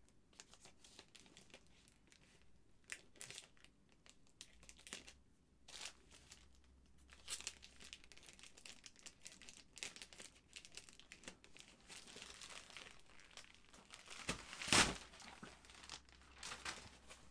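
A plastic courier mailer bag crinkling and rustling as it is cut open with scissors, with irregular snips and rustles. The loudest rustle comes near the end, as the cardboard shoebox slides out of the bag.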